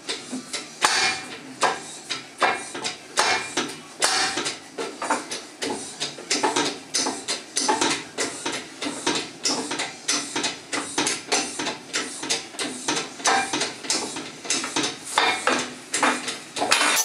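Metal clacking of a homemade motorcycle lift table's anti-fall rack as the table rises: the steel end of a scissor arm drops tooth by tooth along a toothed steel rack, about three clacks a second.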